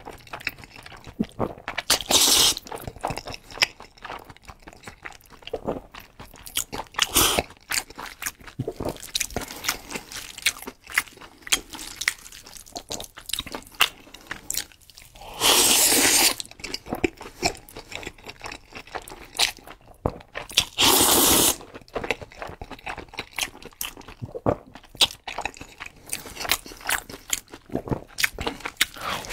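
Close-miked eating sounds: wet chewing and mouth clicks from a person eating saucy noodles and meat. Three loud slurps of noodles, each about a second long, come about two seconds in, midway and a few seconds later.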